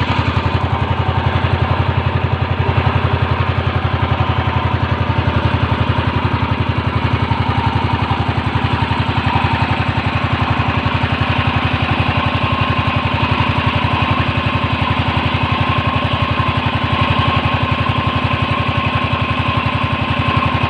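The engine of a small wooden fishing boat (bangka) running steadily underway, with an even, rapid firing pulse and a strong low hum.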